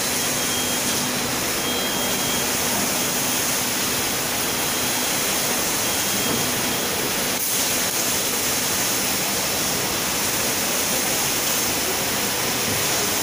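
Automatic kettle-popcorn processing line running: a steady, even rushing noise from the machinery, with a faint high tone coming and going in the first half.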